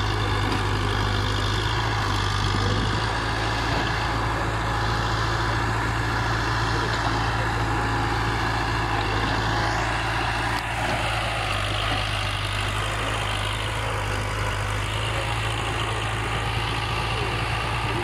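Case 580D backhoe loader's diesel engine running steadily as the machine drives across soft ground, its low hum even throughout with a slight drop in level about halfway through.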